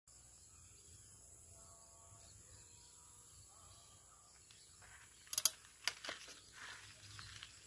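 Steady, high-pitched chirring of an insect chorus, crickets or cicadas. About five seconds in come a quick cluster of sharp knocks, then two more a moment later.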